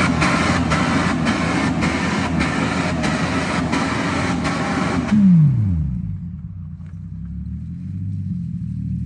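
Jeep ZJ Grand Cherokee engine held at high revs, with a faint regular pulsing. About five seconds in the revs drop away and the engine settles into a steady idle.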